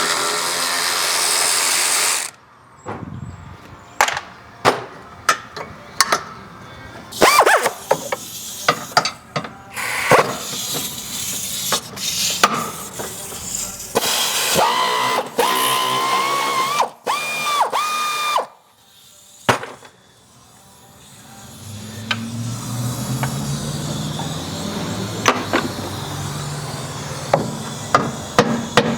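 Cordless power tool running in short bursts to back out bolts, its motor whining, with sharp clicks and metal clanks of tools and parts between bursts. A low steady hum comes in near the end.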